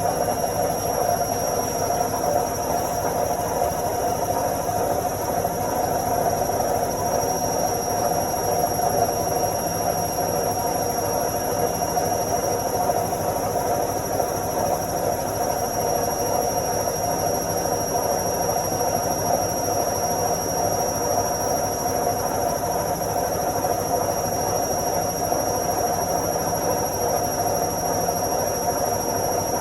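Washing machine spinning its drum on the spin cycle: a steady, even whirring with a thin high whine over it.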